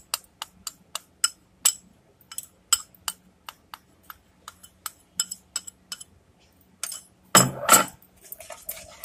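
Metal spoon clinking against a small ceramic bowl in quick, regular taps, about three to four a second, as maida flour is scraped out of it. About seven seconds in comes a louder scrape and clatter, twice in quick succession, as the rest of the flour is tipped in.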